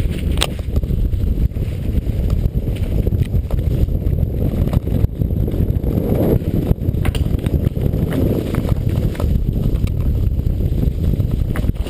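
Continuous rumble of travel over rough ground with wind buffeting the action camera's microphone, dotted with small clicks and knocks from jolts.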